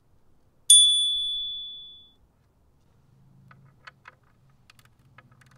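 A metal tool or part struck once, giving a bright metallic ping that rings on two clear tones and dies away over about a second and a half. From about three seconds in, a run of light clicks as a hex-bit tool is worked in the radiator mounting bolt.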